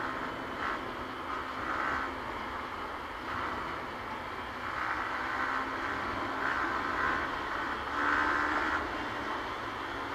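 Yamaha R15 V3 single-cylinder engine running at road speed under a steady haze of road noise; its note swells and drops back in spells of about a second.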